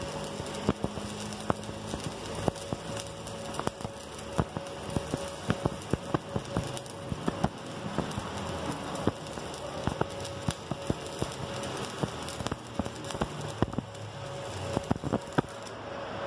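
Stick (SMAW) arc welding with a 1/8-inch electrode on steel plate: a steady crackling hiss with frequent sharp pops as the bead is laid. The arc is broken near the end and the crackle stops.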